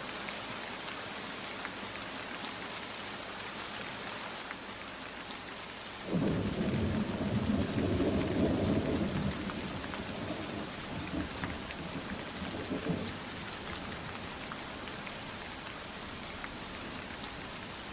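Steady hiss of rain falling, with a low roll of thunder that starts suddenly about six seconds in and rumbles for about seven seconds before fading.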